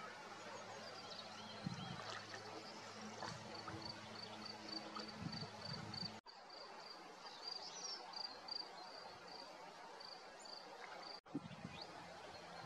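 Quiet outdoor riverside ambience: a high, short call repeated about two to three times a second for several seconds, a few other small bird chirps, and a faint background hiss of water, with a low steady hum in the first half. The sound breaks off for an instant twice at edits.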